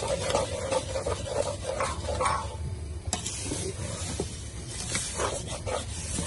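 Wooden spoon stirring fried rice vermicelli and sugar in a metal pan: repeated dry rustling and scraping strokes, with a sharp click about three seconds in.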